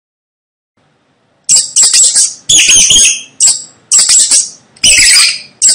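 Mice squeaking: a run of about seven loud, shrill squeaks with a wavering pitch, starting about a second and a half in.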